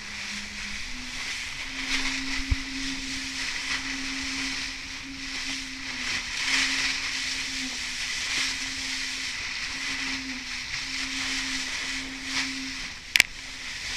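Rush of water along a sailing keelboat's hull with wind buffeting the microphone as the boat sails fast under spinnaker. A low steady hum comes and goes throughout, and one sharp knock sounds near the end.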